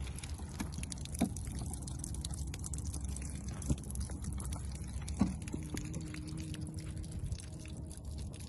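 Steady low rumble of wind on the microphone, broken by three brief knocks about one, three and a half and five seconds in.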